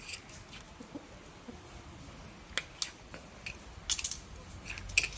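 Plastic interlocking toy building blocks clicking and clacking as they are handled and set down on a tiled floor: a handful of scattered light clicks, some in quick pairs.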